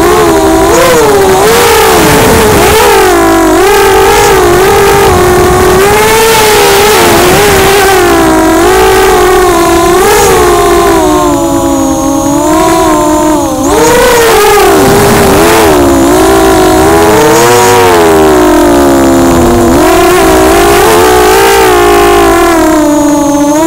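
Brushless motors and propellers of an ImmersionRC Vortex 285 FPV racing quadcopter, heard from its onboard camera: a loud whine whose pitch rises and falls continually with the throttle during acrobatic flying. It briefly drops off about 13 seconds in.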